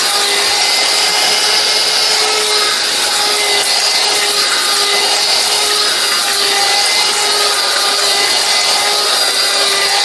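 Miyako electric mixer grinder running steadily at high speed, its motor whining, as it grinds hard cinnamon bark into powder.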